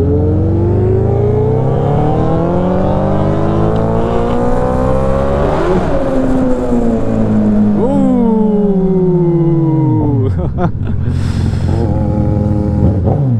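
Suzuki Hayabusa inline-four engine, heard from the rider's seat, pulls hard with its pitch climbing through the revs while running through an underpass. About eight seconds in there is a quick throttle blip, then the revs fall away as the bike slows, settling to a low, steady engine note.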